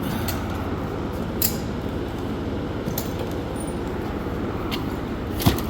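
A steady low hum of shop background noise, with a few light clicks and clinks of items being handled and one sharper click near the end.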